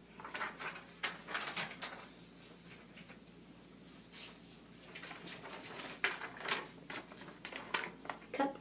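Sheets of drawing paper rustling and crinkling as they are handled and shuffled, in irregular bursts.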